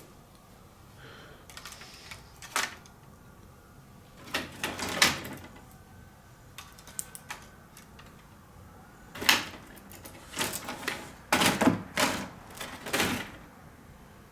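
Laptop motherboards clattering and knocking against each other as they are stacked loose on a scale, in irregular clusters of clicks and knocks with pauses between.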